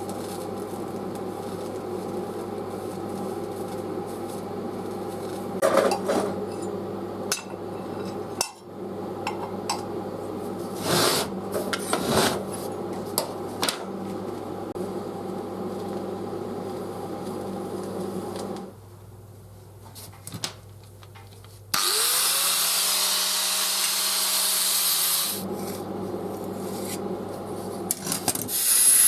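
Metalworking shop tools: a machine runs with a steady hum while metal parts scrape and clack, and it stops about two-thirds of the way through. Soon after comes a loud hiss lasting about three seconds, with a tone that rises and then falls.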